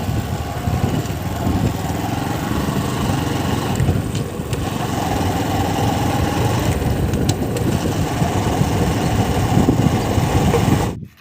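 Diesel engine of heavy machinery running steadily, with the pitch lifting briefly a couple of times, cutting off suddenly near the end.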